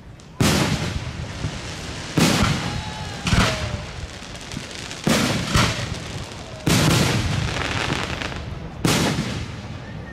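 Aerial fireworks shells bursting overhead: about seven loud booms a second or two apart, each trailing off in a long rumbling echo.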